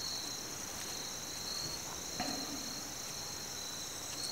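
A chorus of crickets chirring steadily, high-pitched, with one pulsing trill on top of a continuous higher drone. There is a faint short click about two seconds in.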